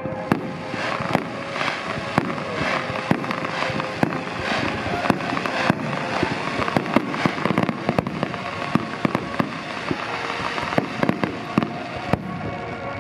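Aerial fireworks in a dense barrage: sharp bangs and crackling bursts, several a second, overlapping without a pause.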